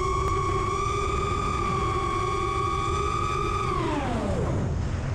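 FPV racing miniquad's brushless motors whining at a steady high pitch. Near the end the pitch falls sharply over about a second as the throttle is chopped for a roll, leaving a rushing noise.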